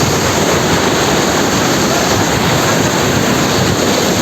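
Small waterfall pouring with force off a rock ledge, heard close up: a loud, steady rush of falling water.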